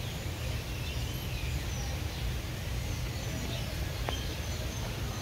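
Small birds chirping faintly and sparsely over a steady low rumble of background noise, with one sharp click about four seconds in.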